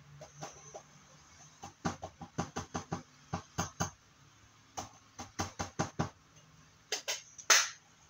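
Hard plastic eyeshadow palette tapped against the rim of a plastic cup to knock crushed eyeshadow out into it. The taps come in two quick runs of about four a second, then a few louder knocks ending in the loudest clatter near the end.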